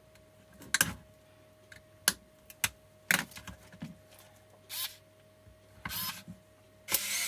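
Light clicks and taps of small metal tools on a battery pack's screws and plastic case, then a couple of short whirs and, near the end, the steady whir of a small cordless electric screwdriver starting up to back out a tiny screw from the BMS plate.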